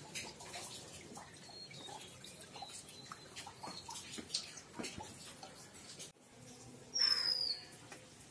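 Rainwater dripping and splashing onto wet concrete in irregular small drips. After a cut about six seconds in, a bird gives one short, high whistle that falls slightly in pitch.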